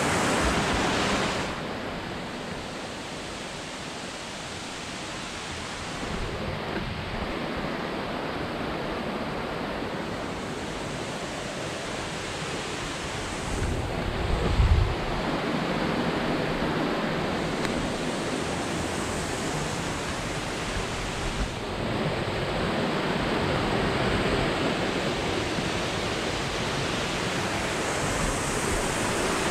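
Steady rushing of creek water flowing down its bed, its level shifting abruptly a few times. A brief low rumble of wind on the microphone about halfway through.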